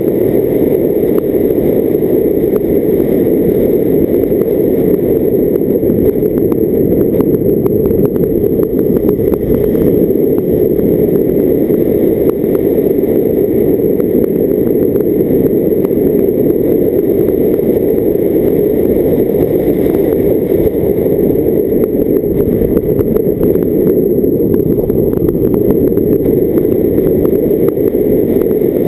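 A car driving steadily along a lane, heard as a loud, steady, muffled rumble of wind and road noise from a camera mounted outside on the bonnet.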